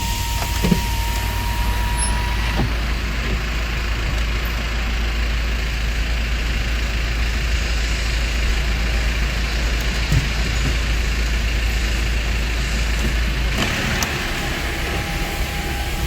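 A vehicle running steadily with a constant low rumble and a broad hiss. A thin steady whine sounds for the first two or three seconds, the rumble drops away near the end, and another faint steady tone follows.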